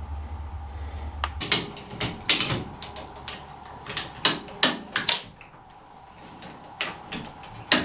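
Irregular metal clinks and clanks, about a dozen sharp knocks, from a wrench and loose nuts while the brake backing plate nuts are taken off a truck's rear axle. A low hum stops about a second and a half in.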